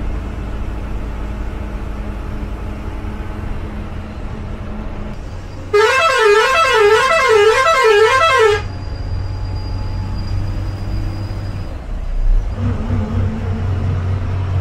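Ashok Leyland bus engine running low and steady. About six seconds in, a loud warbling horn sounds for about three seconds, its pitch wavering up and down about two and a half times a second.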